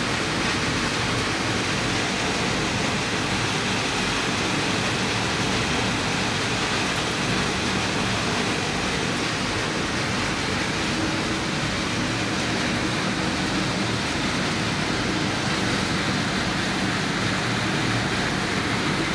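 Processing machinery of a PCB recycling plant running steadily: a loud, even rushing noise with a low hum beneath.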